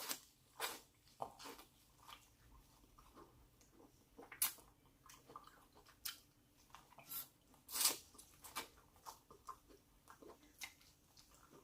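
A person chewing food with the mouth close to the microphone: scattered soft, wet clicks and smacks, spaced irregularly.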